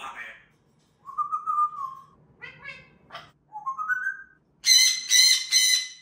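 Parrots whistling and calling: a steady whistle, short chattering notes, then a rising whistle, followed near the end by three loud, harsh squawks.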